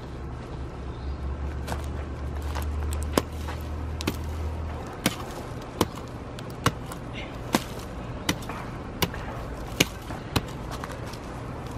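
A tined garden cultivator chopping into dry clay soil and wood-chip mulch, giving about ten sharp strikes spaced a little under a second apart from about three seconds in. A low rumble underlies the first few seconds and stops about five seconds in.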